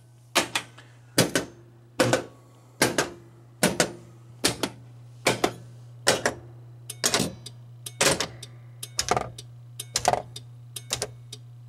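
Bally Medusa pinball machine's solenoid coils firing one after another in test mode: a sharp clack about every 0.8 seconds over a steady low hum. The test pulses are short, too short to fully reset the drop targets.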